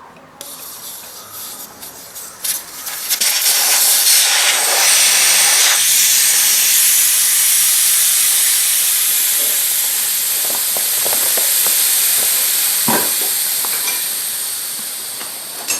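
Air hissing out of a motocross bike's rear tyre inner tube as it is let down. The steady hiss builds over the first few seconds, slowly eases off and stops at the end, with a couple of small clicks near the end.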